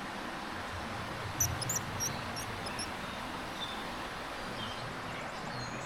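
Steady rush of creek water, with a quick run of high, thin bird chirps about a second and a half in.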